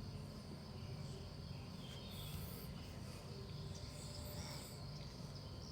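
Faint, steady high-pitched insect trill, like crickets, over a low background rumble.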